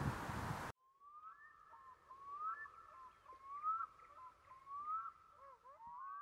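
Outdoor wind noise that cuts off suddenly under a second in, followed by an end-logo sound effect of short rising chirp-like glides, several overlapping and repeating about once a second.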